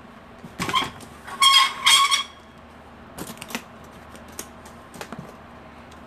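Handling noises as a case is sorted out on a workbench: two short, loud, high squeaks about a second and a half in, then a few light clicks and knocks.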